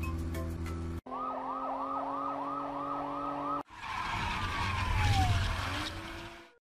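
Police car siren yelping rapidly, about three up-and-down sweeps a second, for about two and a half seconds. It cuts off abruptly and a rushing whoosh with a falling tone swells and fades out.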